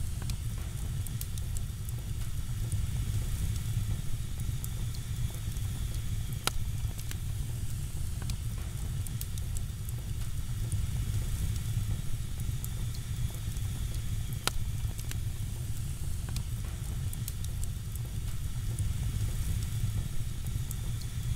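Crackling fire: a steady low rumble of flames with scattered sharp crackles and pops.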